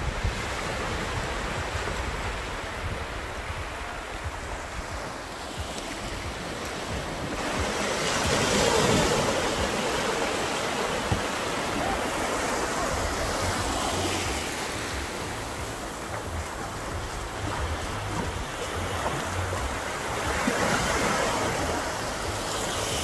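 Small sea waves breaking and washing through shallow water at the shoreline, with a low wind rumble on the microphone. The surf swells louder about eight seconds in and again near the end.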